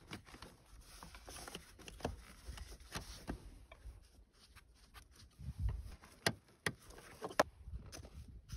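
Screwdriver and gloved hands working at the carburetor clamps and hoses of a snowmobile engine: faint, scattered small clicks, scrapes and taps, with a few low knocks.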